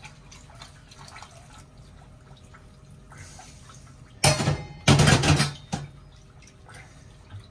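Warmed chamomile and rose water trickling and dripping from a small stainless saucepan into a pot of melted beeswax and olive oil. About four seconds in come two loud bursts of noise, each about half a second long.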